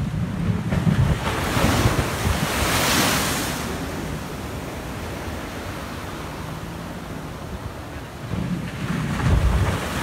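Heavy surf crashing against a concrete seawall. Rushing surges of breaking water swell in the first few seconds, ease off, then build again near the end, where a wave slams into the wall with deep thuds and bursts into spray.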